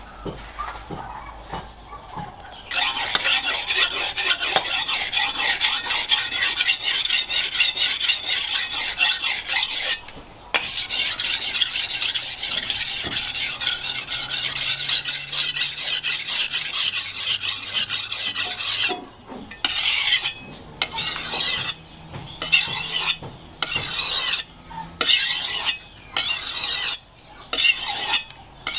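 Hand-forged steel cleaver blade being sharpened on a flat whetstone: scraping strokes in quick, nearly unbroken succession from about three seconds in, then slower, separate strokes about one a second in the last third.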